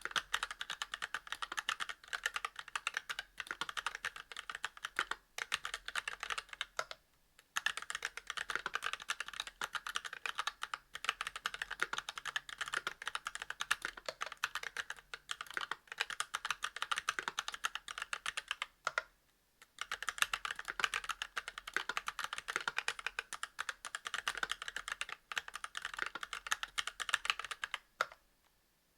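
Continuous fast typing on an aluminium-cased mechanical keyboard with Kailh Box Red linear switches, a brass plate and GMK doubleshot ABS keycaps: a dense stream of key clacks, with short pauses about seven seconds in, around nineteen seconds in, and near the end.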